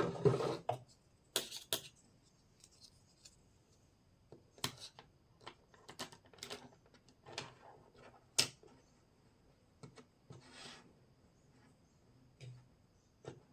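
Small plastic toy kitchen pieces being handled: a burst of rustling and knocks at the start, then scattered sharp clicks, taps and short rubbing sounds, the sharpest click a little past halfway.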